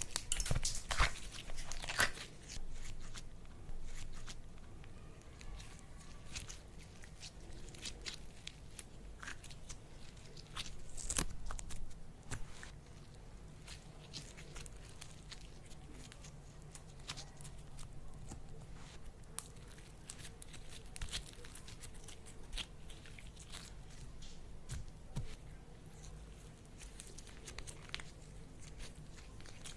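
Slime being worked by hand, giving scattered small crackles and clicks, densest in the first couple of seconds and with another brief cluster about eleven seconds in.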